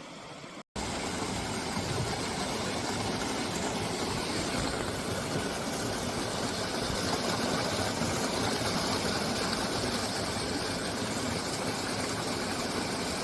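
Valley stream water running over rocks in a steady, even rush. A brief dropout just under a second in; after it the rush is a little louder.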